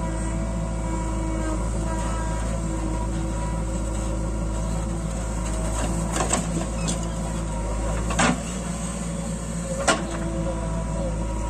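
JCB backhoe loader's diesel engine running steadily as the backhoe digs and tips soil. A few sharp knocks of the bucket and falling clods come through, the loudest about eight and ten seconds in.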